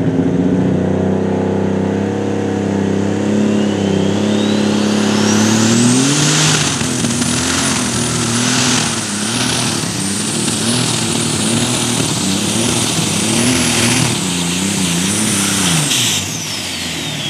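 Light super stock pulling tractor's turbocharged engine: it revs while a high turbo whistle climbs over about three seconds. About six seconds in the pull begins, and the engine works hard under the sled's load for about ten seconds with its pitch wavering under the high whistle. Near the end the whistle falls away and the engine drops off as the run ends.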